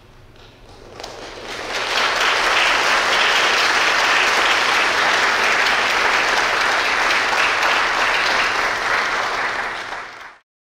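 Audience applauding in a concert hall, building over the first two seconds, then holding steady and loud before cutting off suddenly near the end.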